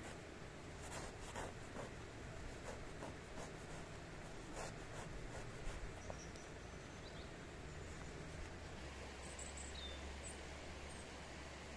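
Knife sawing through a sesame-seed burger bun: a run of soft, irregular crisp scrapes over the first half, then faint bird chirps near the end.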